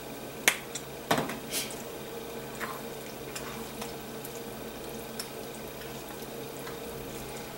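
A thick, creamy chicken pot pie filling simmering in a skillet while a spatula stirs it. There are a few light knocks of the spatula on the pan in the first second and a half, over a steady low hum.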